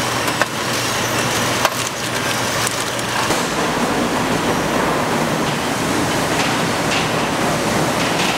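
Factory machinery clattering over a low steady hum, with tennis-ball cans knocking on a rotary canning line. About three seconds in it changes to a steady, even hiss of plant noise with a few faint ticks.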